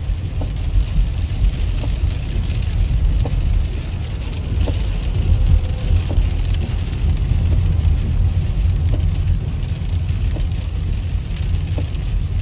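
Road and engine noise inside a moving car's cabin: a steady low rumble with a fainter hiss over it and a few small ticks.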